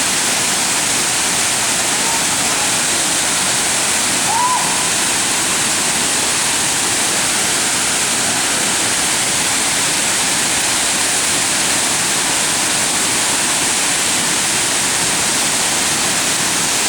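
Waterfall in heavy monsoon flow: a steady, loud rush of falling water with no letup.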